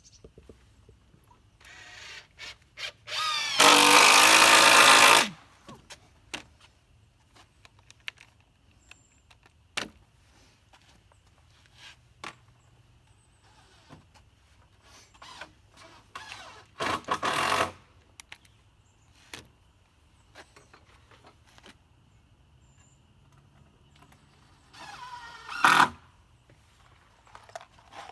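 A power drill driving screws into wooden rafters, in three runs of motor whine. The longest, about a second and a half, comes a few seconds in, and two shorter runs come later. Light knocks and clicks of handling fall between the runs.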